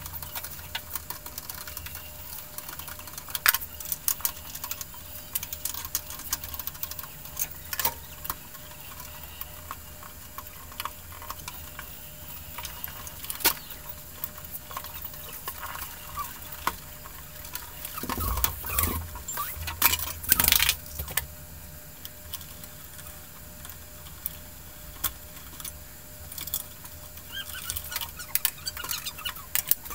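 Scattered light clicks and knocks over a low steady hum, with a cluster of louder knocks about two-thirds of the way through.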